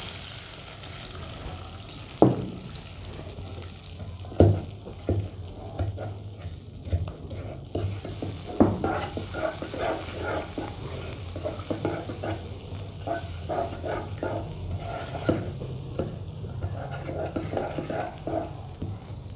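Wooden spatula stirring and scraping in a nonstick wok of garlic, stock and water over a light sizzle. There are a few sharper knocks of the spatula against the pan, and quicker stirring strokes after about eight seconds.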